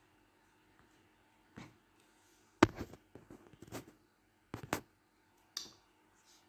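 A few short, sharp clicks and knocks at irregular intervals, the loudest about two and a half seconds in, with a close pair near the three-quarter mark.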